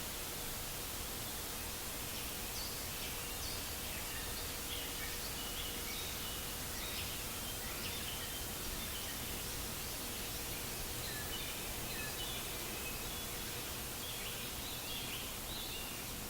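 Steady white-noise hiss with recorded birdsong layered over it: small birds chirping in short, scattered calls, starting a couple of seconds in.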